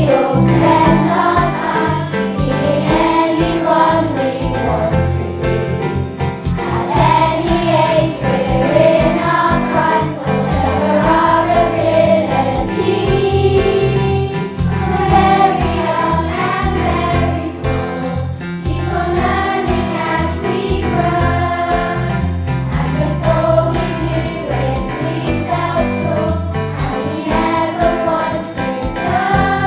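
Children's choir singing a song over a backing track with a steady beat.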